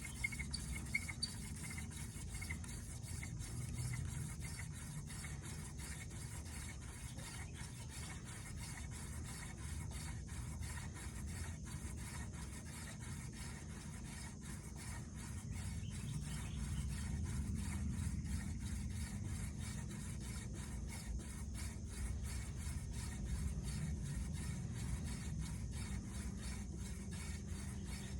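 Hand-drill friction fire: a dried horseweed spindle spun back and forth between the palms into a tulip poplar fireboard, a continuous rapid rubbing of hands on the stalk and wood grinding in the fireboard's socket as it heats toward an ember.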